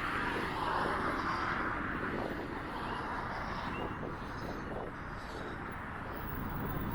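Wind buffeting the microphone with a steady low rumble, over the noise of passing road traffic, a little louder in the first couple of seconds.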